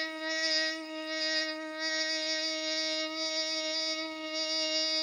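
A man imitating a train engine with his voice: one steady, buzzing hum held at an even pitch.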